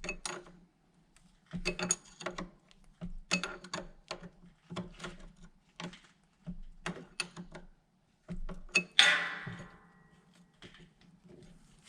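Hand tools working on battery terminal nuts and bolts: irregular groups of short metallic clicks and clinks, with one louder ringing metal clank about nine seconds in.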